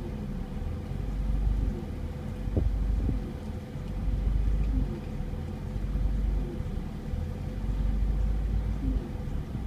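Mazda MX-5 NA6's 1.6-litre four-cylinder engine idling roughly with the air conditioning on, the idle rising and falling every second or two. The owner traced the rough idle to an air bubble in the cooling system.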